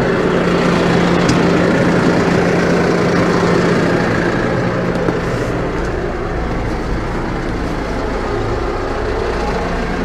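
New Holland T5.120 tractor's four-cylinder diesel engine running steadily.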